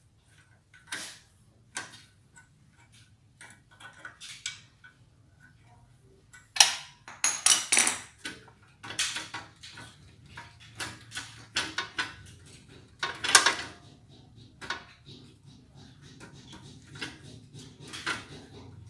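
Ratchet wrench loosening a 12 mm bolt on the underside of a motorcycle: irregular metallic clicks and clinks of the tool on the fastener. The clicking is densest about a third of the way in and again past the middle.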